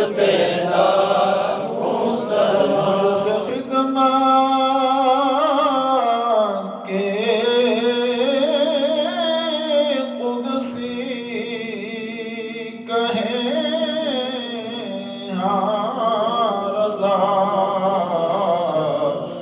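Men chanting an Urdu devotional salam in praise of the Prophet, unaccompanied. A lead voice draws out long, wavering melodic notes, with a steady low note held beneath for much of the middle.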